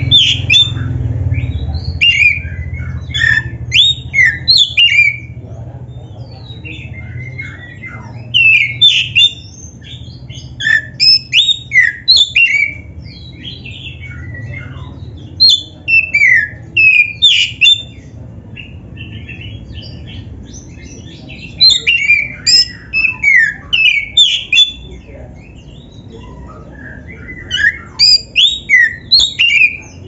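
Male Oriental magpie-robin (black-breasted kacer) singing: about six loud phrases of rapid, varied high notes, each lasting a few seconds, with short pauses between them.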